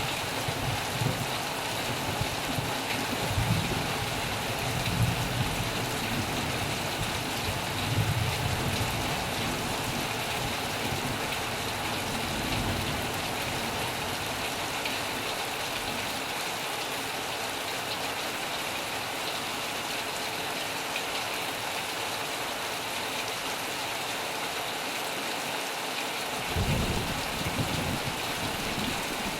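Heavy rain falling steadily on a metal roof, with low rumbles of thunder through the first several seconds and again near the end.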